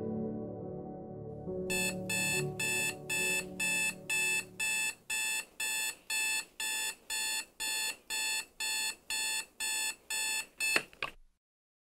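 Digital alarm clock beeping rapidly and steadily, about two and a half beeps a second, over soft ambient music that fades away. Near the end a single tap on the clock cuts the beeping off.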